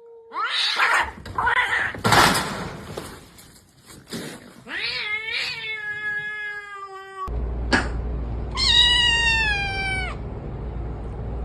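Cats meowing: after a few short noisy sounds, a long drawn-out meow comes about five seconds in, then another long meow that falls in pitch.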